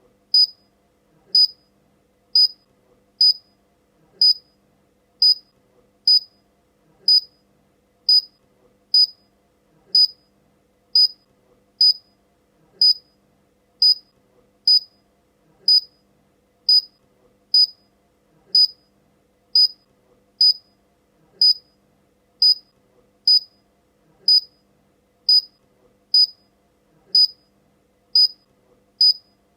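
Electronic beeper giving short, high-pitched beeps, evenly spaced a little faster than once a second, steady and unchanging.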